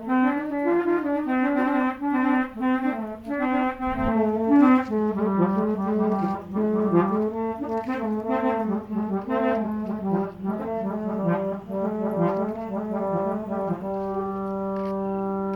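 Old-style vehicle horns (klakson) played as a musical instrument: a quick tune of changing notes over a held drone, settling into a long sustained chord near the end.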